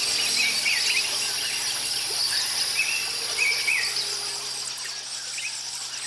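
Nature ambience: a steady insect hiss with short, high bird chirps every second or so, slowly fading.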